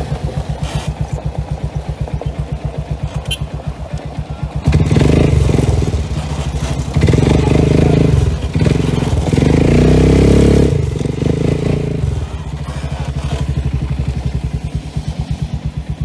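Quad bike (ATV) engine running with an even low pulsing. From about five seconds in it gets much louder under throttle, with several brief dips, then settles back to the lower pulsing for the last few seconds.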